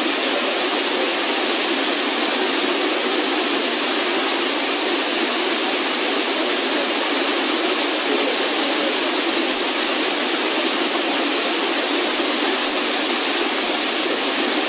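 Waterfall plunging into a pool: a loud, steady rush of falling water that does not change.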